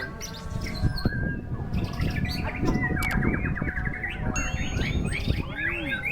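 White-rumped shamas (murai batu) singing, a fast run of chirps and arching whistled notes that grows busier after about three seconds, over a steady low rumble.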